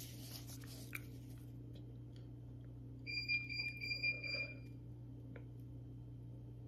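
Sipping hot coffee from a lidded paper cup, with a high, steady tone lasting nearly two seconds about three seconds in; a couple of faint clicks.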